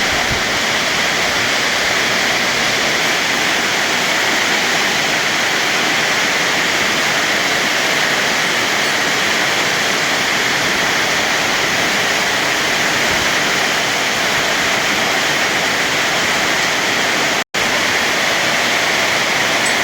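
Rain falling steadily, a loud even hiss; the sound drops out for an instant near the end.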